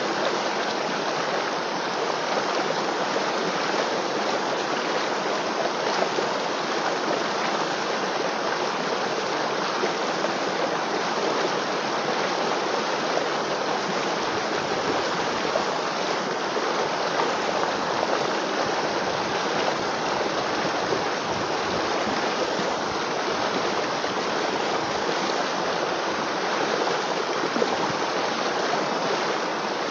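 River water flowing: a steady, even rushing that does not change.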